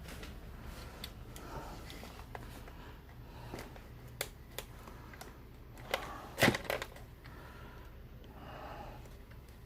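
Light clicks and knocks of a plastic remote-control toy pickup being handled, with a few louder knocks about six seconds in.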